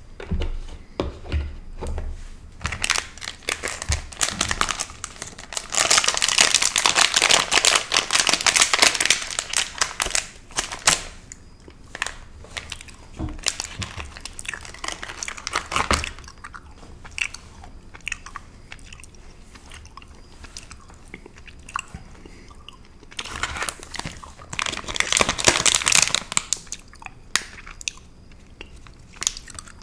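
Crinkling of plastic candy wrappers and a clear plastic pouch of caramel bites handled close to the microphone, in two long, loud stretches of dense crackling, the first about three seconds in and the second near the end. Quieter scattered crackles and chewing sounds fill the gaps between.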